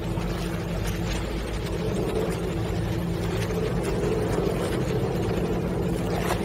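Motorboat engine running steadily, a low even hum with a few held tones under a wash of noise.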